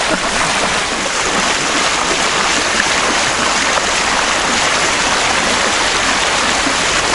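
Steady rush of water along the hull and in the wake of a small sailboat under way.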